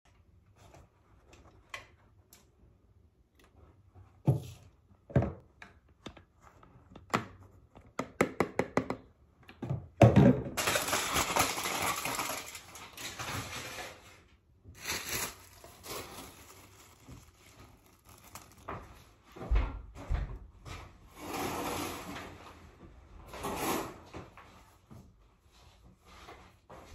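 Handling sounds of hair-dyeing supplies being worked with: scattered knocks and thumps, a quick run of clicks about eight seconds in, then stretches of crinkling and rustling of foil and plastic.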